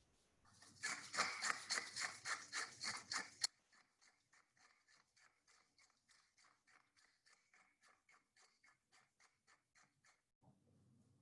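Rapid, rhythmic stirring strokes against a bowl, about five a second, as a mayonnaise and buttermilk dressing is mixed. The strokes are loud for the first few seconds, then carry on more softly until they stop near the end.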